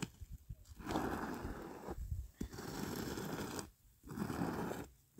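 Long-handled wooden squeegee scraping liquid bitumen across concrete, in about three strokes of a second or so each with short pauses between.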